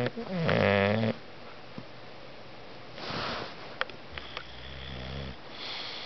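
Sleeping bulldog snoring. A loud pitched snore comes in the first second, then a breath out with a hiss about three seconds in and a few small clicks. A quieter, lower snore follows around the fifth second, then another soft breath.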